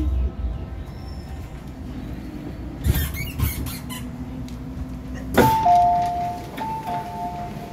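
MTR M-Train coming to rest at a platform: the low running rumble dies away, a burst of clicks and hiss comes about three seconds in, then a sharp hiss and the train's two-tone door chime, sounded twice.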